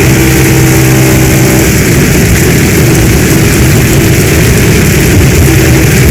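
Heavy storm rain pouring steadily in a dense, loud hiss. A low hum shows through during the first second and a half and again faintly near the end.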